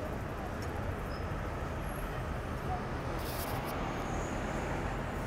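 Steady city street traffic noise, with a brief high hiss about three seconds in.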